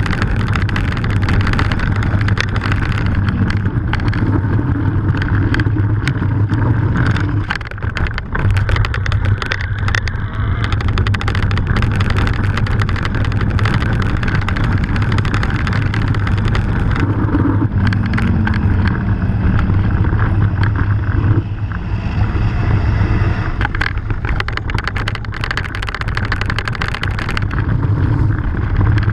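Mountain bike riding fast down a rough gravel track, heard from a camera mounted on the bike: a steady low rumble of tyres and wind buffeting the microphone, with constant rattles and clatters from stones and the bike over the bumps.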